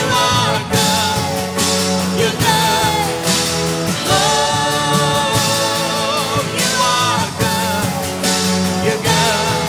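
A worship band plays a song while a singer's voice carries the melody over it, continuously and at a steady level.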